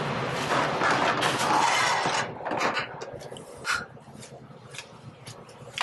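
Pasta sizzling in a hot aluminium sauté pan over a gas burner: a loud, steady hiss for about the first two seconds. Then the hiss drops away and metal tongs and a ladle clink and scrape against the pan as the pasta is tossed.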